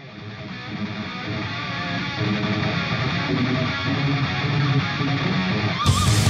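Intro music with guitar, fading in over the first second. About six seconds in, a sudden hissing burst joins the music.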